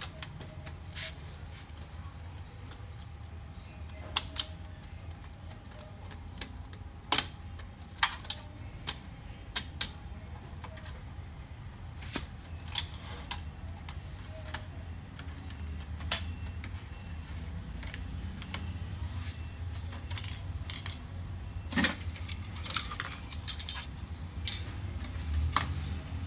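Irregular clicks and light metal and plastic knocks from hands working inside a laser printer's opened chassis: the plastic side cover, cable connectors and screws on the power-board bracket. A steady low hum runs underneath.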